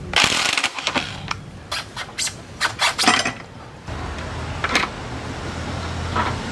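Ratchet driving the front brake caliper's Torx bolts home: a run of sharp, irregular metallic clicks for about three seconds. A steady low hum then takes over, with a couple of short metal knocks.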